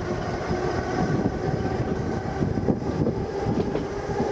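Electric tram running along the track, heard from its open upper deck: a steady rumble of wheels on the rails with a faint, even hum over it.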